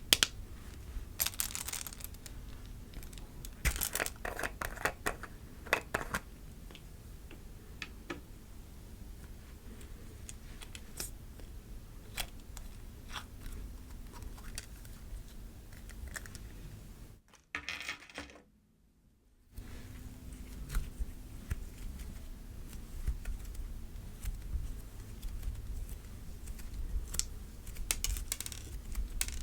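Cloud slime being stretched and squished by hand, giving crackling, clicking pops and soft tearing in uneven bursts. The sound drops out for about two seconds a little past halfway.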